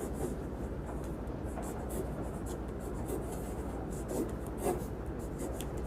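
Pen or pencil writing on paper: a run of short, faint scratching strokes over a steady low hum.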